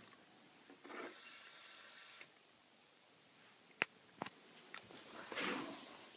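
Lego RC car's small electric motor and plastic gears whirring in short bursts, with a few sharp clicks in between.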